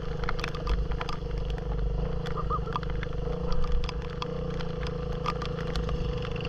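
Kawasaki Fury 125 single-cylinder motorcycle engine running steadily while riding, with scattered sharp ticks and rattles over it.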